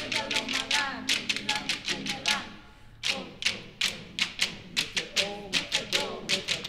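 A vocal choir doing fast rhythmic hand percussion, sharp claps and taps about six a second, over low chanting voices. It thins to a brief lull about two and a half seconds in, then resumes.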